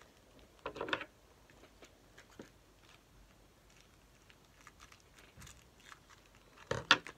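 Scissors cutting into a plastic-wrapped card packet, with the wrapper crinkling: two short crunchy bursts, one about a second in and a louder one near the end, with small clicks and rustles of handling between.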